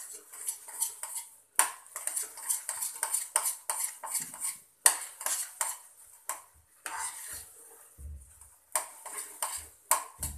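Metal spatula stirring thick semolina halwa in a kadai, scraping and clacking against the pan in quick, uneven strokes, several a second.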